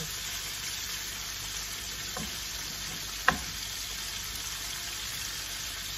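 Flour-coated mackerel pieces frying in hot oil in a pan: a steady sizzle, with a faint click about two seconds in and a sharper, louder click a second later.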